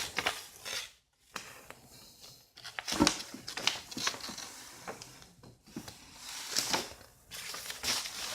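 Paper rustling and crinkling in irregular bursts, with a few short taps, as a paper poster is handled.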